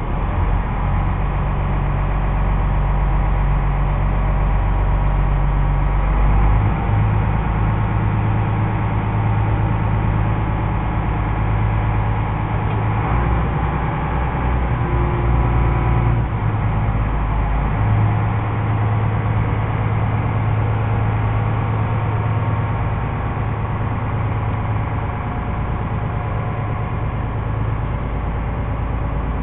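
A small car ferry's diesel engine running with a steady low drone, its note shifting about six seconds in and again around eighteen seconds.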